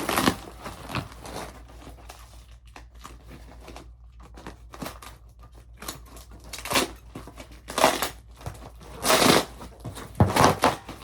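Parcel packaging being crumpled, crinkled and pulled apart by hand while it is opened, in irregular rustles with several louder bursts in the second half.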